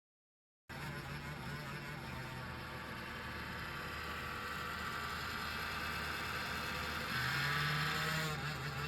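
Laptop cooling-pad fan running with an abnormal whirring noise, the fault the fan is being repaired for. It starts suddenly about a second in and grows louder and higher-pitched for a moment near the end.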